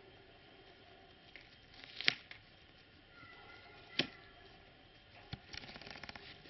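Two sharp knocks about two seconds apart, then a quick run of small clicks and rustles near the end: a snowy Tibetan mastiff puppy bumping and brushing its fur against the camera.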